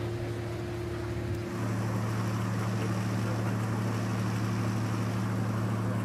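Boat engine running with a steady low hum over the wash of water; about a second and a half in, the hum shifts and grows a little louder.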